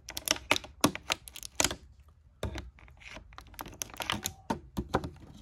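Clear plastic packaging around an action figure crinkling and crackling as it is handled, in quick irregular clicks with a short lull about two seconds in.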